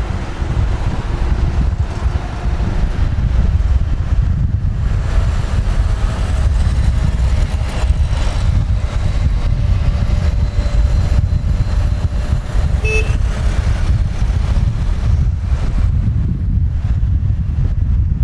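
Heavy road traffic heard from a moving motorbike: a loud, steady low rumble of engines and wind on the microphone, with faint passing engine tones and a short horn toot about two-thirds of the way through.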